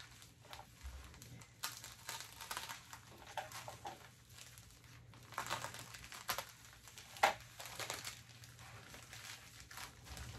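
Packaging crinkling and rustling as a wrapped item is handled and unwrapped by hand, in uneven bursts with a sharp crackle about seven seconds in.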